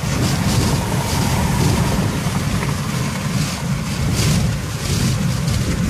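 Steady road and wind noise inside a car's cabin at highway speed, about 65–70 mph: a deep, even rumble with a fainter hiss of wind over it.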